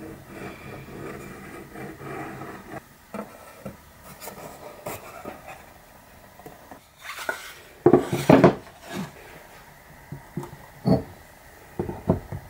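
A thin wooden panel scraping and rubbing as it is handled and fitted into a wooden frame on a workbench. Then comes a run of knocks, loudest in a cluster about eight seconds in, as the panel is pressed down and concrete paving blocks are set down on top of it.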